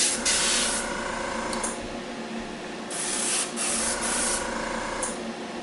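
Gravity-feed airbrush spraying primer in short hissing bursts: one in the first second, then two more about three and four seconds in, over a steady low hum.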